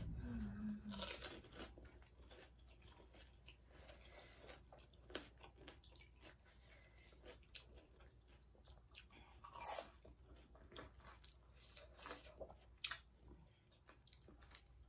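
Faint, irregular crunching and chewing as crisp pani puri shells are bitten and eaten.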